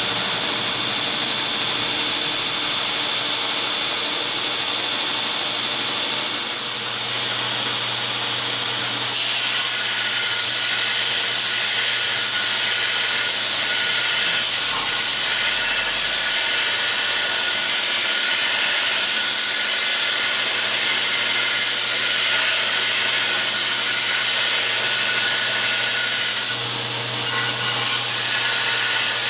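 Homemade belt grinder running steadily, a motor hum under a continuous hiss from the abrasive belt, with a brief dip in level about six and a half seconds in.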